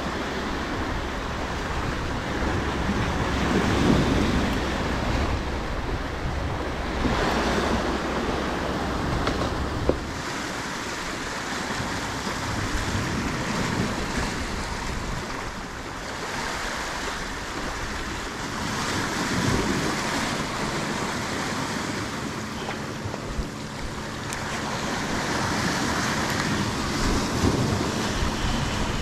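Sea swells washing over the rocks at the foot of a fishing ledge, surging and draining away every few seconds. Wind on the microphone adds a low rumble that eases about ten seconds in.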